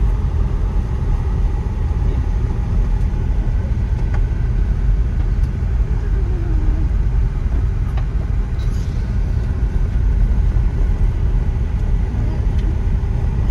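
Steady low rumble of a car driving on a dirt and gravel road, heard from inside the cabin: engine and tyre noise, with a few faint ticks scattered through it.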